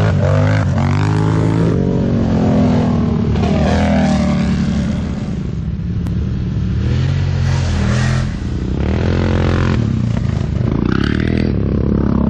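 Several ATV engines passing close one after another, each pass rising and falling in pitch as the quad revs by, over a steady low engine drone.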